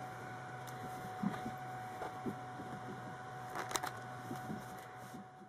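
A steam iron being handled and moved over cotton fabric on an ironing board: faint rubs and light knocks, with a couple of sharper clicks about three and a half seconds in, over a steady low hum.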